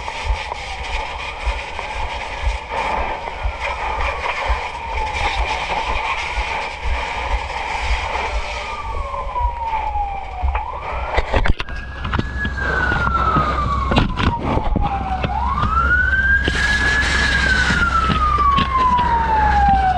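Fire truck siren wailing, each cycle rising quickly and then falling slowly over about four to five seconds. It grows clearly louder from about halfway through, just after a sharp knock.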